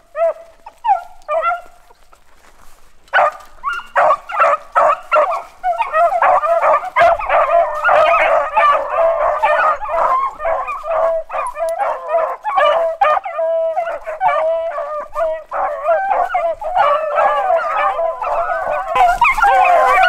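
A pack of beagles baying and yelping together, the typical voice of hounds running a rabbit's scent trail. A few calls at first, a short pause, then from about three seconds in many dogs cry at once, overlapping and louder.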